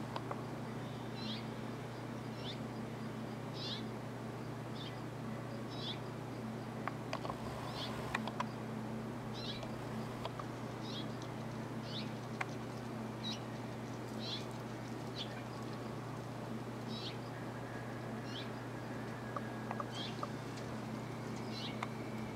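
A small bird calling over and over, a short high chirp roughly once a second, over a steady low hum, with a few light clicks.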